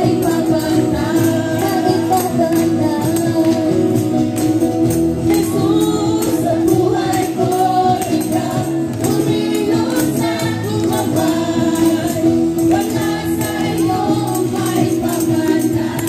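A live church worship band amplified through PA loudspeakers: several voices singing together over acoustic guitar and keyboard, with a steady percussive beat throughout.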